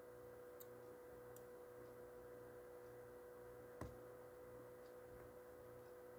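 Near silence: a faint steady hum with a thin steady tone, and a single click nearly four seconds in.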